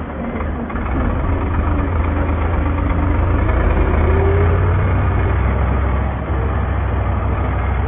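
New Holland tractor's diesel engine running while driving, a steady low drone. It gets louder about a second in and eases briefly about six seconds in.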